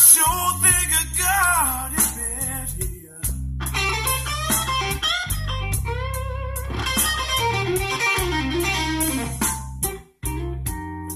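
Guitar-led blues-style music with a heavy bass line, played through the car's stereo (Kenwood KDC-100U head unit driving an Art Nouveau AN4.400 amplifier), after the system has been run in for more than ten hours. There is a brief dropout about ten seconds in.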